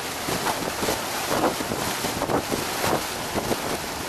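Water splashing and slapping against the hull of a boat moving across a lake, in irregular splashes over a steady rush of wind on the microphone.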